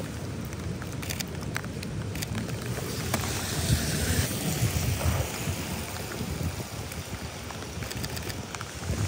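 Rain and traffic ambience on a wet city street, with steady wind noise on the microphone and scattered clicks. About three seconds in, a swell of hiss and rumble rises for a couple of seconds and then fades.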